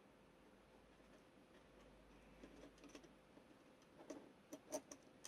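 Near silence, then a handful of light plastic clicks and taps in the last second or so as a small LED circuit board and model-kit plastic parts are handled and pressed into place.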